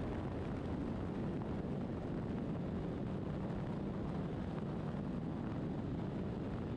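Steady rush of wind and road noise while riding a BMW R1200RT motorcycle at highway speed in strong gusty crosswinds, with wind buffeting the microphone and the bike's engine drone underneath.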